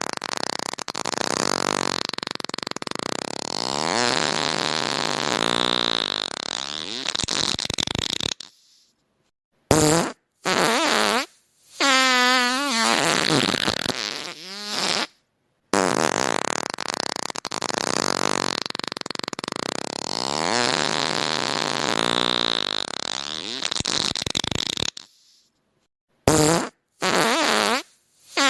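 Fart sound effects. A long, noisy, sputtering fart of about eight seconds is followed by a short gap, a few short blasts and a wavering, pitched fart. The whole sequence then plays a second time.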